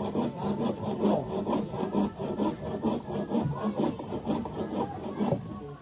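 Rhythmic rasping rub of wood on wood, about four or five strokes a second, each stroke with a short creak.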